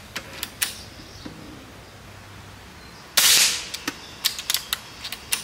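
A Seneca Eagle Claw .25 calibre PCP air rifle firing one shot at full power about three seconds in, a short sharp crack. A few light clicks come before it, and a quick run of mechanical clicks after it.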